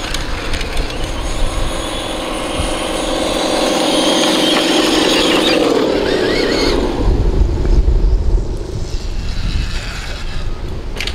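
Traxxas TRX-6 6x6 RC truck running: a steady pitched motor hum that drops in pitch about six seconds in, followed by low rumbling.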